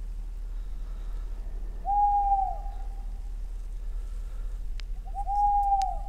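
An owl hooting twice, a few seconds apart; each hoot is a single steady note, shorter than a second, that dips at its end. A couple of faint sharp clicks come just before the second hoot.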